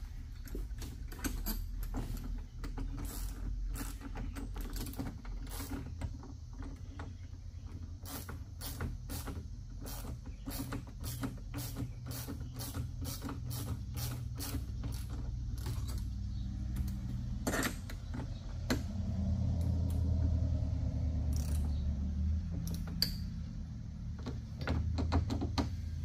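Irregular sharp clicks and creaks of hand-worked metal hardware, the clamps of a truck-bed tonneau cover being fitted and tightened, over a steady low hum.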